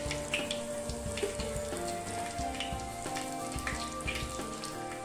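Dried red chillies frying in hot oil in a clay pot, a steady sizzle with many small crackling pops, under instrumental background music.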